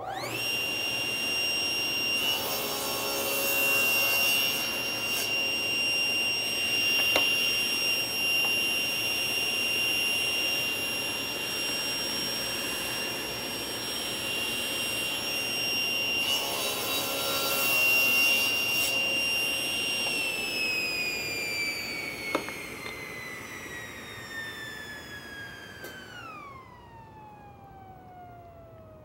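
Table saw switched on, spinning up at once to a steady high whine, cutting through a pair of door rails twice (about two seconds in and again about sixteen seconds in), then switched off and winding down, its whine falling steadily in pitch.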